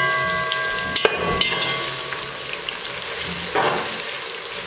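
Sliced onions sizzling steadily as they fry in hot oil in an aluminium pot, browning for plov. A slotted metal skimmer stirs them, scraping and clicking against the pot a few times about a second in.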